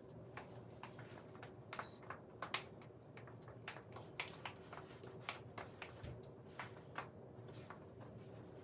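Faint rustles and light taps of a person moving and posing in clothes, scattered several times a second over a low steady room hum.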